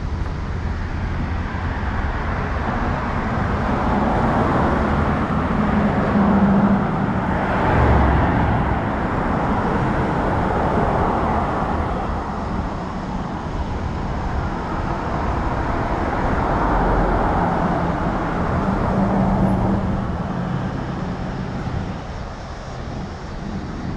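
Road traffic: cars passing one after another, a steady rush of tyre and engine noise that swells and fades every few seconds.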